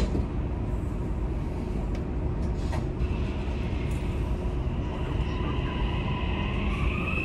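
Inside a Dubai Metro carriage: a steady low rumble from the standing train, then from about three seconds in a whine from the electric traction motors that rises in pitch near the end as the train starts to pull away from the station.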